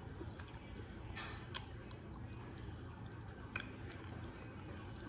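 A person chewing barbecue pork close to the microphone, with a few sharp wet mouth clicks.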